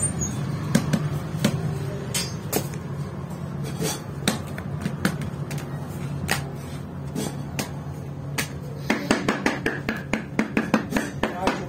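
Irregular sharp taps and knocks of flatbread dough being worked by hand on a board, turning into a quick run of taps near the end, over a steady low hum.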